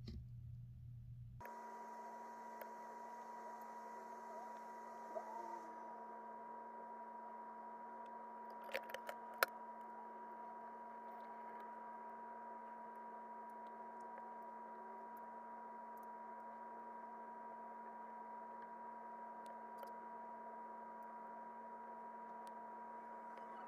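A steady electrical hum with a higher whine over it, setting in abruptly about a second and a half in, with a few faint clicks about nine seconds in.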